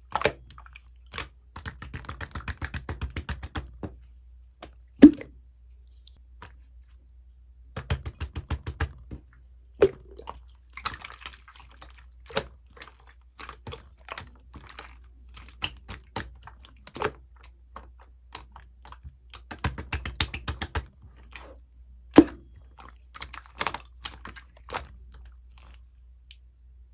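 Clear mixed slime being squished and worked by hand, giving runs of fast wet clicks with a few single louder pops.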